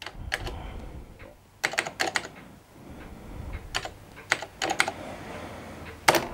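Typing on the IBM PC Convertible's built-in keyboard: a string of irregularly spaced key clicks as a command to print the text file is keyed in.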